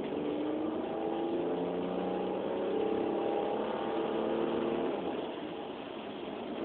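Opel Vectra GTS's 3.2-litre V6 engine working under throttle, its note swelling for about five seconds and then easing back. The engine has logged misfire codes P0300, P0304 and P0306: a random misfire, on cylinders 4 and 6.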